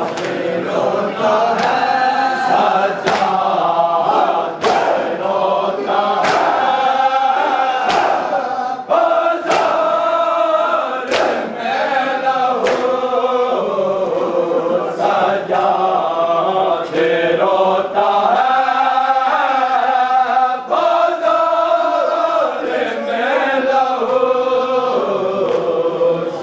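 A group of mourners chanting a noha in unison, with sharp hand strikes at a steady beat a little more than once a second: matam, chest-beating in time with the lament.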